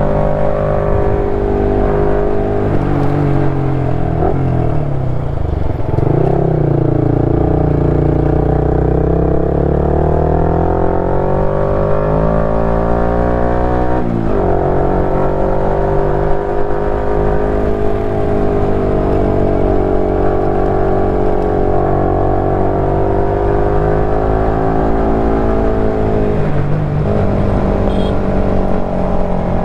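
KTM 390 Duke's single-cylinder engine running under way, its note rising and falling with the throttle. The pitch drops sharply and climbs again twice, about a fifth and about halfway through, with a smaller dip near the end.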